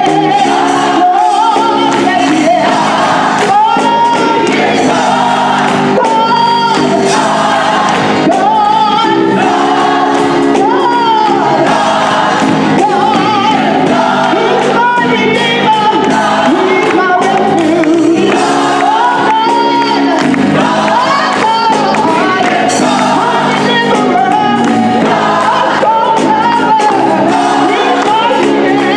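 Gospel choir singing with a lead soloist, the choir clapping along to the beat.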